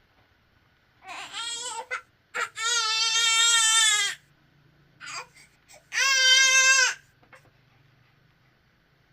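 A young child crying in three long wails: one about a second in, a longer one from about two and a half seconds, and a last one about six seconds in.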